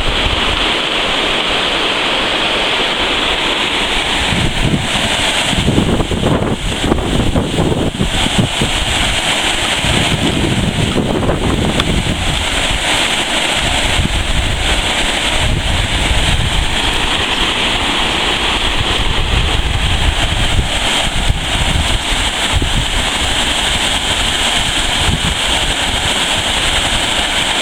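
Large river waterfall, a steady loud rush of falling water. Low rumbles of wind buffeting the microphone come and go, strongest about four to eight seconds in and again around ten to twelve seconds.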